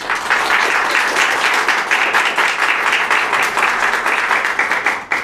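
Audience applauding: a dense round of clapping that starts suddenly and dies away after about five seconds.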